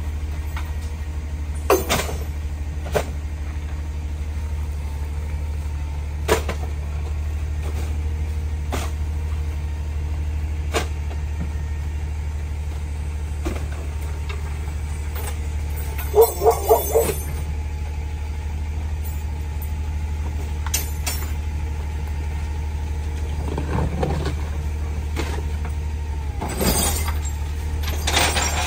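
CNG rear-loader garbage truck engine idling steadily, with scattered knocks and thuds as trash bags, boxes and bins are thrown into the rear hopper. A short burst of about four squeaky pulses comes a little past halfway.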